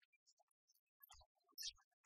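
Near silence, with faint scattered ticks and two faint low thumps in the second half.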